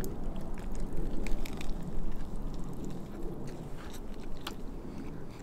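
Two people biting into and chewing cheeseburgers, with scattered short wet clicks and smacks of the mouth over a steady low background rumble.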